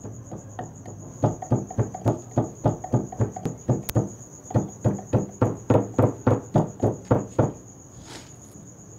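Crickets chirring steadily at a high pitch, overlaid by a fast run of loud knocks at about four a second that stops briefly about four seconds in, resumes, and ends near the end.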